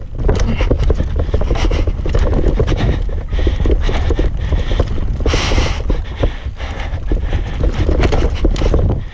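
Norco Range mountain bike ridden fast down a rough dirt trail: a dense, irregular clatter of knocks and rattles from the bike and tyres hitting roots and ruts, over a steady wind rumble on the action-camera microphone. A short hissing burst about five seconds in.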